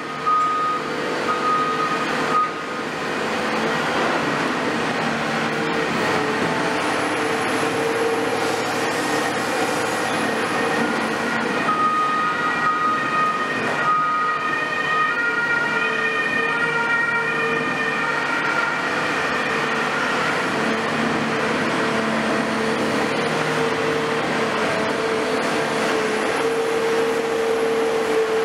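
Caterpillar 336F long-reach demolition excavator running, its Cat C9.3 diesel engine and hydraulics giving a steady drone with a constant whine. A high beeping sounds for the first couple of seconds, and high wavering tones come and go through the middle.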